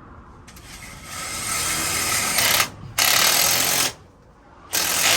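Cordless impact driver hammering on a 14 mm lag bolt to run it out, in short trigger bursts of about a second each.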